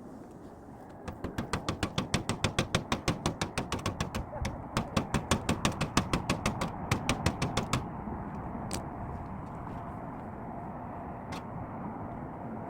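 A hand tool clicking rapidly and evenly, about six clicks a second, as a stuck screw is worked loose. There is a short break in the middle, and the clicking stops about three-quarters of the way through, leaving a steady background noise with a few stray clicks.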